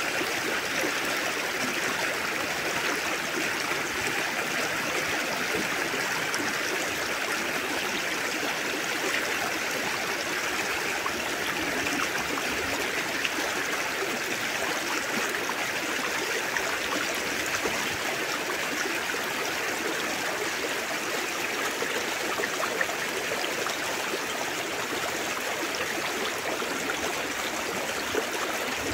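A shallow river babbling over a stony bed, a steady, unbroken rush of water.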